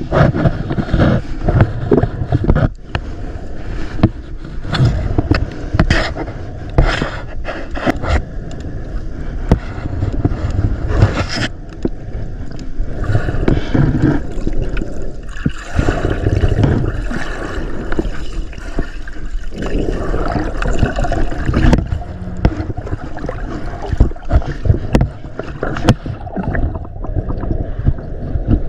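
Water sloshing and gurgling around the camera while swimming, with frequent knocks and scrapes against it.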